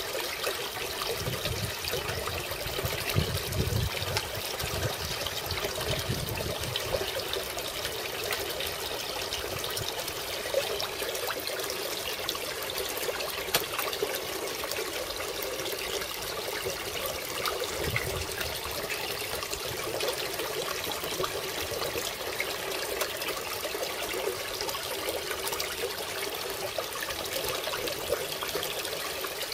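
Water steadily splashing and trickling into a koi pond from its filter return and small waterfall.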